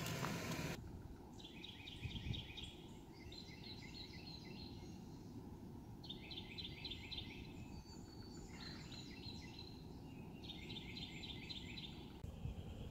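A songbird singing: about five phrases, each a fast series of repeated, evenly spaced notes, over a faint steady outdoor background.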